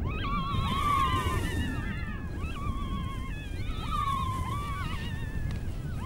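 Jackal pups whining and crying, several high wavering calls overlapping, the loudest about a second in and again about four seconds in: hungry pups calling for their absent mother.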